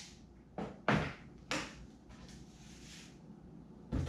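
Four short, light knocks and clunks of things being handled, a paint can and stick among them, spread through a few seconds over quiet room tone, the last one near the end.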